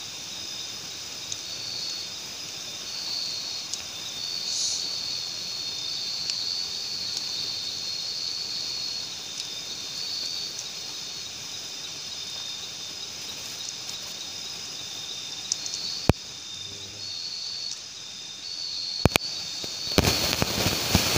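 Night insects chirring in a steady high-pitched chorus, pulsing in bursts about half a second long over a constant hiss. A few sharp cracks come near the end, followed by a brief louder crackling burst.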